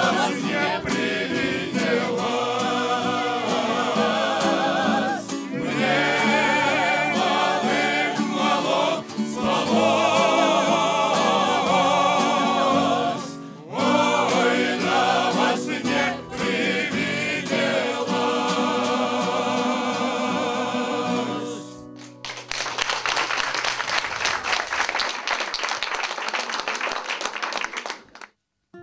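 Mixed vocal ensemble of men's and women's voices singing in harmony, with acoustic guitar accompaniment; the song ends about 22 seconds in. Audience applause follows for about six seconds and cuts off abruptly near the end.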